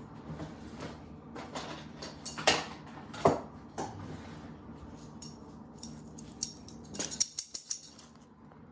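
Hands handling a gingerbread kit's icing bag and pieces on a table: rustling and light clicks and clinks, with a quick run of sharp clicks about seven seconds in.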